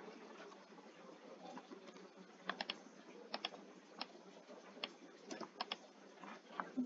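Faint, scattered keystrokes on a computer keyboard: single taps and quick pairs, spaced about half a second to a second apart.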